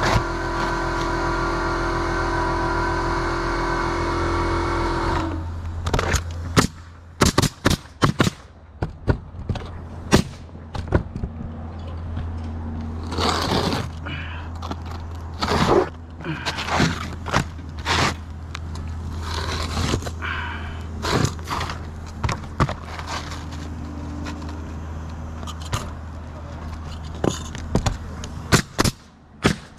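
Asphalt roof shingles being handled and fitted: rough scraping of the gritty shingles, with many sharp knocks and clicks, some in quick clusters. A steady motor hum runs under the first five seconds and cuts off suddenly.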